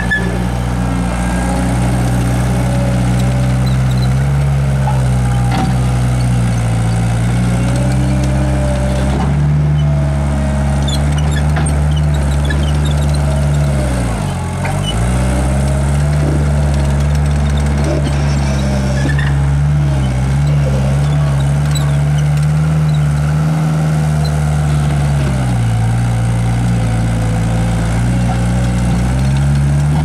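2004 CAT 247 compact track skid steer's diesel engine running steadily at working speed while the machine tracks and works its bucket in a soil pile, with a wavering whine above the engine note and scattered light clicks. The engine note dips briefly about halfway through.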